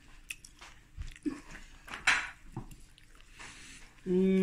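A person eating butter chicken curry from a spoon: small mouth smacks and light clicks of chewing, then near the end a long hummed 'mmm'.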